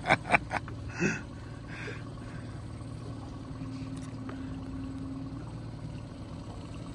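Boat motor running steadily at slow trolling speed, a low even hum.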